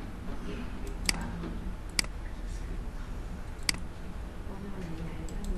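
Three sharp computer mouse clicks, about a second in, at two seconds and near four seconds, over a low steady hum.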